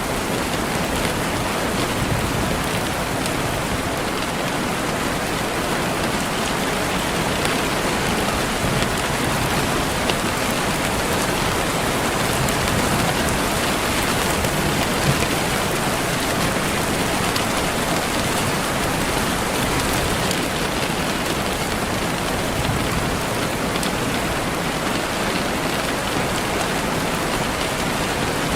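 Steady rain falling, a dense even hiss of drops with occasional slightly louder drop hits.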